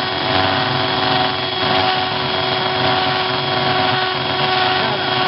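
Handheld electric drill running steadily as its bit bores through the glass of a bottle, with an even motor whine.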